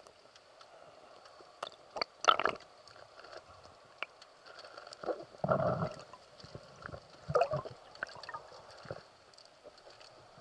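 Water gurgling and sloshing in shallow sea water, with scattered small clicks and knocks. The loudest gurgles come about two, five and a half and seven and a half seconds in.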